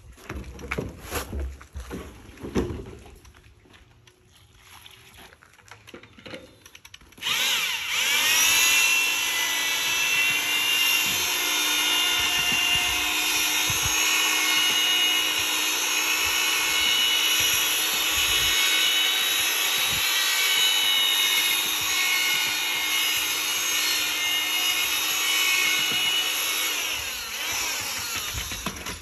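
Handheld electric drill with a mixing paddle stirring a grey mix in a bucket: it starts abruptly about seven seconds in, spins up, runs steadily at speed, and winds down near the end. Before it starts there are a few scattered knocks.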